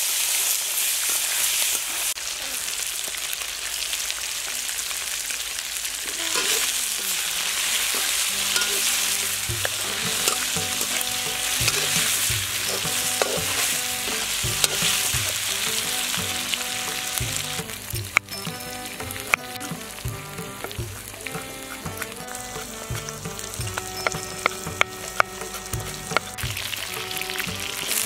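Chicken frying and sizzling in a steel kadai over a wood fire, stirred with a metal slotted spoon. Sharp metal clicks of the spoon against the pan come in the second half.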